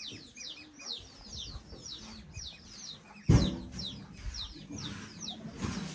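A flock of young poultry peeping: many quick, high, falling chirps overlapping, with a brief louder noise about three seconds in.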